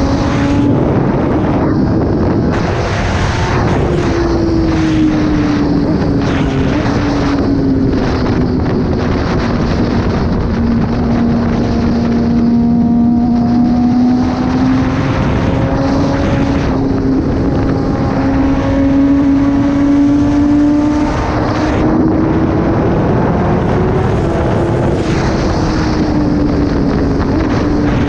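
Kawasaki ZX-10R inline-four motorcycle with an SC-Project exhaust, riding along with the engine note rising and falling gently as the throttle changes, over steady wind rush on the microphone.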